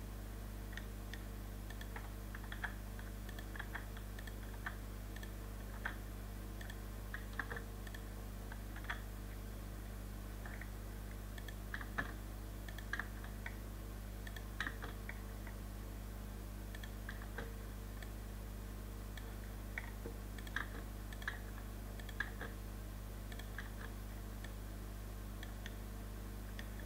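Computer mouse and keyboard clicking at irregular intervals, roughly one click a second, over a steady low electrical hum.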